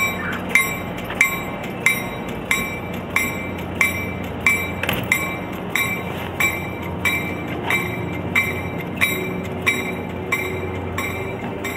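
A bell strikes steadily about one and a half times a second, each stroke ringing briefly, over the steady running of an MBTA GP40 diesel locomotive. From about eight seconds in, a tone rises slowly in pitch.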